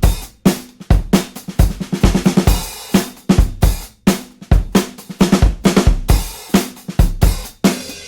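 Background music: a drum kit playing a steady beat of bass drum, snare and cymbal hits, with no other instrument.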